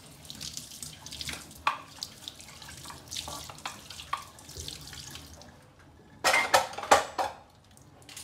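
Water running from a tap and splashing in a kitchen sink, uneven, with a louder stretch of splashing about six seconds in.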